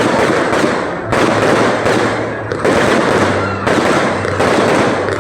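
Fireworks going off in a dense, continuous crackling barrage, with a fresh burst every second or so.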